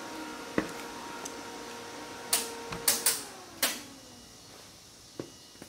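Volvo S60 electric radiator cooling fan running with the engine off, then switching off about three seconds in and spinning down with a falling hum, with several sharp clicks around the moment it stops. The fan shutting off on its own is the sign that the replaced cooling fan module now works and the fan no longer stays on all the time.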